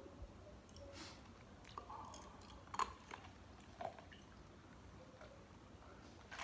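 A person chewing food close to the microphone, with a few short crunchy bites spaced about a second apart.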